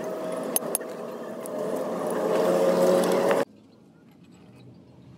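A motor vehicle's engine running, growing louder over about three seconds, with a few sharp clicks about half a second in; it cuts off abruptly a little past three seconds.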